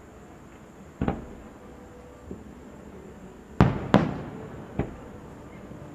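Aerial firework shells bursting: one bang about a second in, two loud bangs close together a little past halfway, and a smaller one soon after, each trailing off in a short echo.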